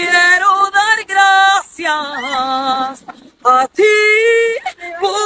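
A woman singing unaccompanied, holding long notes with vibrato, with a brief break in her voice a little past the middle.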